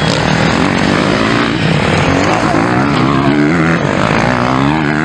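Motocross bike engines revving hard, their pitch rising and falling as the riders open and shut the throttle over the jumps, with a strong climbing rev in the last couple of seconds.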